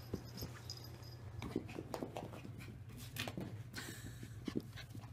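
A puppy's short, faint whimpers and grunts while playing, with scattered rustling and light knocks over a steady low hum.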